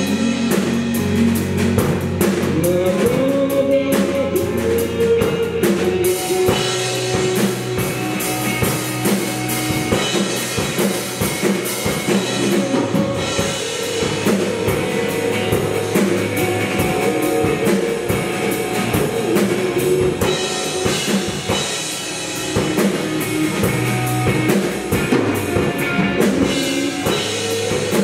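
Live rock band playing, with electric bass, electric guitar and a drum kit keeping a steady beat.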